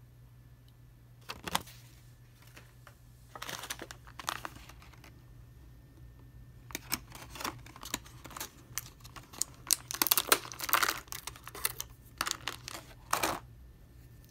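Handling of action-figure packaging: a folded paper insert rustling, then a thin clear plastic blister tray crinkling and clicking in irregular bursts as small plastic accessory pieces are pried out of it, loudest about two-thirds through.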